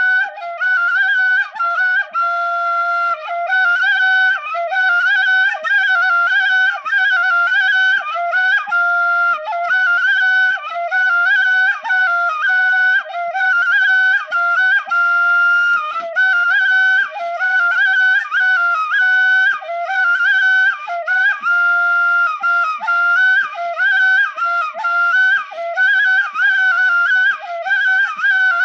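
Background music: a single flute playing a melody with quick ornamental turns between held notes.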